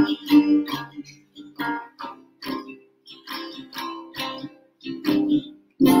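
Acoustic guitar with a capo strummed in chords at an easy pace, the strums growing softer through the middle, then a final loud strummed chord near the end that rings out as the song finishes.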